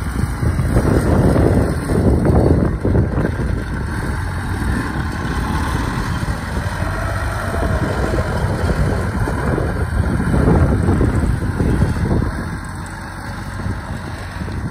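Engine of a tracked rice-hauling carrier running as the machine drives across a harvested rice field, dipping a little in level near the end as it moves off.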